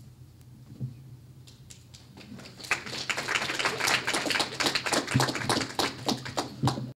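Audience applauding: a few scattered claps at first, swelling into steady applause about three seconds in, then cutting off suddenly near the end.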